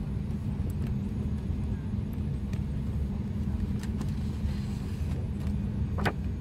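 Steady low cabin rumble inside an Embraer 175 jet airliner. A few light clicks and paper rustles come from the card being pulled from the seat-back pocket, mostly in the second half.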